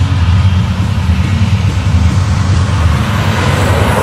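Diesel freight locomotives in a multi-unit consist passing close by, their engines running with a steady low drone. A louder rushing noise builds near the end as the last locomotive passes.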